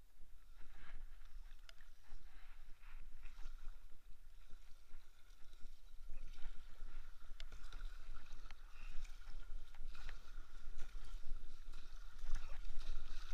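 Kayak paddling: the paddle blades dip and splash in the water with each stroke, as a run of irregular splashes and drips, heard close from a camera on the kayak's deck.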